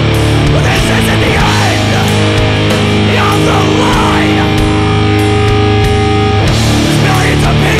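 Heavy metal recording by a band playing distorted electric guitars, bass and drums, with sustained guitar chords that change every second or so.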